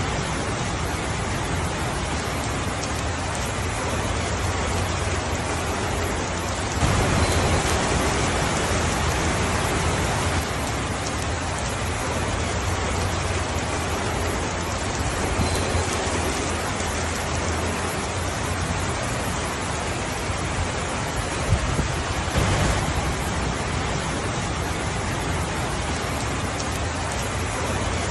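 Steady rain falling, a constant even hiss of drops, growing louder for a few seconds about seven seconds in.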